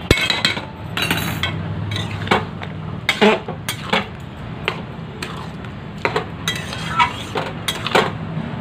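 Metal spatula stirring a thick vegetable curry in a metal kadai, clinking and scraping against the pan at irregular intervals.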